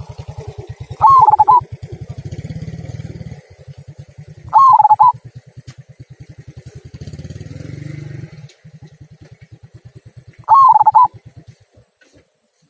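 A local zebra dove (perkutut) with a 'kung' voice cooing: three short, loud, warbling coos spaced a few seconds apart. Under them runs a low, rapid throbbing like a small motor running, which stops near the end.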